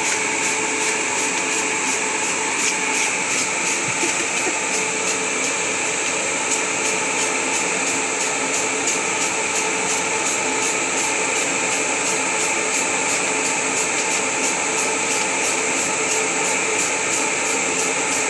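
Centrifugal inline duct fan running steadily: an even rush of air with a few steady tones over it.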